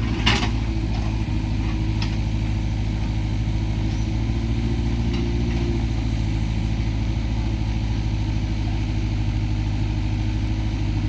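Sumitomo excavator's diesel engine running steadily at an even speed, with one sharp knock just after the start.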